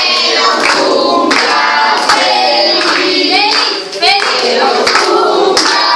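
A group of girls singing a birthday song together, with hands clapping along.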